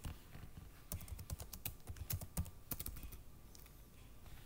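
Typing on a computer keyboard: a run of quick, uneven keystrokes starting about a second in.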